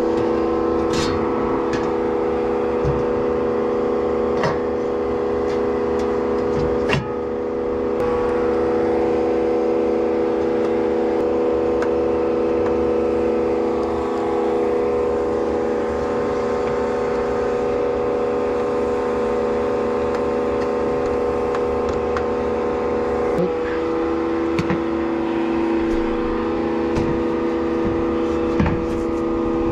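Steady machine hum from a running motor, with several pitched tones that hold level throughout; one tone grows stronger a little after the middle. A few light knocks, like metal panels or tools being handled, sound over it.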